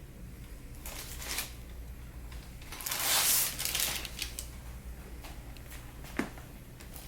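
Rustling and rubbing during hands-on treatment, with a louder stretch of rustling about three seconds in and a single sharp click near the end.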